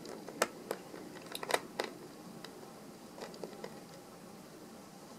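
Small sharp clicks and light scrapes of a screwdriver working small screws out of a laptop screen assembly. The clicks are irregular, bunched in the first two seconds with a few more after.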